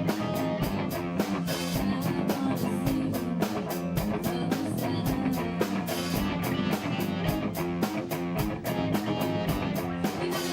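A band playing an upbeat rock song: guitars and bass over a drum kit keeping an even beat of about four strokes a second.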